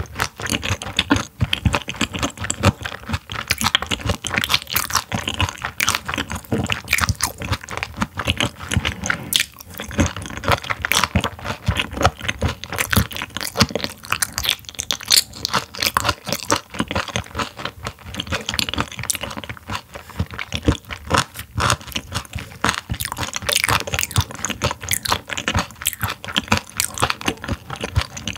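Close-miked wet chewing and crunching of raw silver pomfret (butterfish) sashimi, sliced after being frozen. The sound is a steady run of rapid crackles and squishes.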